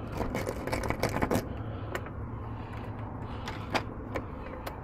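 Irregular small metallic clicks and taps of a locksmith's tools working a locked deadbolt, thickest in the first second and a half and sparser after, over a steady low hum.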